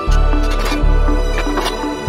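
Background music with a deep bass note on each beat, about three-quarters of a second apart, under a soft higher melody.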